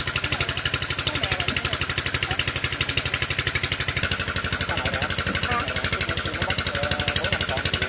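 A small engine idling with a steady, fast, even throb, about a dozen beats a second. Voices are faint underneath it.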